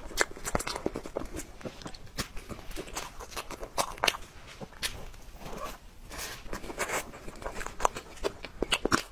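Spoon scraping and clicking against a clear plastic dessert box as soft strawberry cream cake is scooped out, with mouth sounds of eating, in an irregular run of sharp little ticks several times a second.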